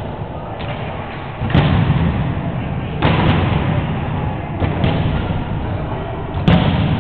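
A volleyball being struck during a rally, echoing in a large gym: three loud smacks, about a second and a half in, at three seconds and near the end, with a softer hit between them.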